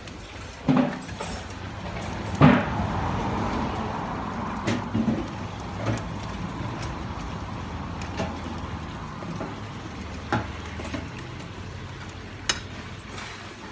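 A metal poker or fire tongs knocking and scraping against burning coals and the stone hearth of a wood-fired oven, in scattered sharp knocks with a heavier one a couple of seconds in, over a steady low rumble.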